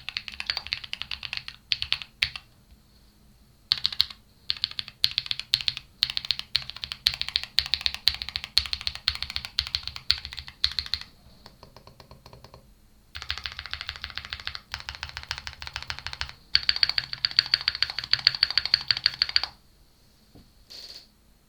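Typing on a Qwertykeys QK75, a gasket-mounted aluminium 75% mechanical keyboard with KNC Red Jacket switches and Cherry-profile PBT keycaps. The keystrokes come in runs broken by brief pauses: softer typing near the middle, then two long stretches of fast, dense typing, and a short last burst near the end.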